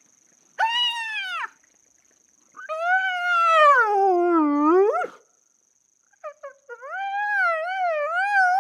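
Spotted hyena giving odd, almost human squealing calls. A short arched call is followed by a long one that slides down in pitch and sweeps sharply up at its end, then a few short notes and a wavering call that rises and falls.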